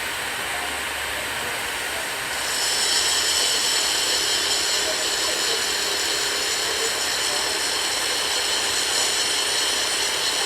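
Power tool cutting metal: a high-pitched whine starts about two seconds in and runs steadily over a constant hiss.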